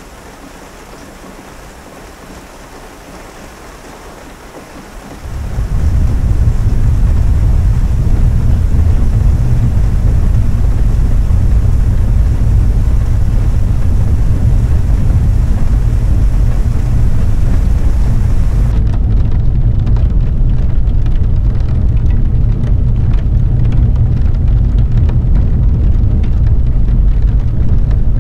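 Heavy rain on a moving car, with a loud, steady deep rumble that comes in suddenly about five seconds in and holds. About two-thirds of the way through, the high hiss falls away and separate drops can be heard ticking.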